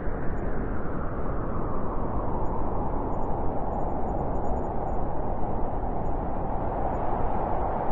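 Boxing crowd cheering in the arena, a steady din of many voices.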